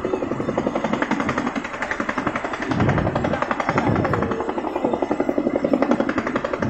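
Tandem-rotor Chinook helicopter hovering just above the ground, its two rotors beating out a loud, rapid chopping pulse, with a heavier low rumble about halfway through.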